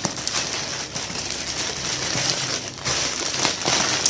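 Plastic parcel packaging crinkling and rustling as it is pulled and torn open by hand, with many irregular crackles.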